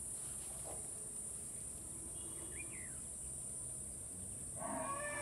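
Steady high-pitched chorus of crickets, with a short bird chirp about halfway through. Just before the end, a louder call with a clear pitch sets in.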